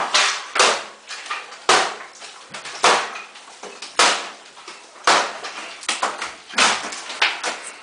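Hammer blows knocking out a wood-framed wall with cedar siding: repeated sharp impacts about once a second.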